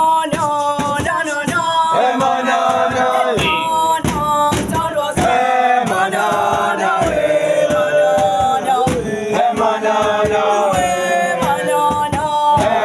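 A group of boys singing a chant together, several voices in harmony with long held notes.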